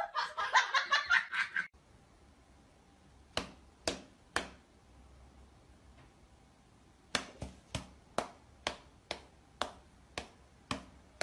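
A cat's paw and a person's hand patting against each other in light slaps: three quick ones, a pause, then a steady run of about two slaps a second.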